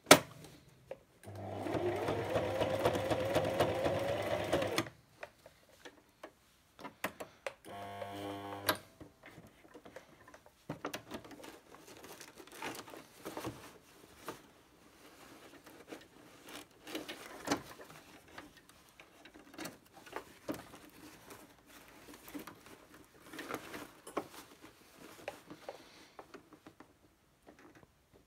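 Brother electric sewing machine stitching a rank patch onto uniform fabric: a sharp click at the start, then one run of about three and a half seconds whose motor pitch rises as it speeds up, and a second short run of about a second. After that come scattered clicks and rustles of the fabric and machine being handled between stitches.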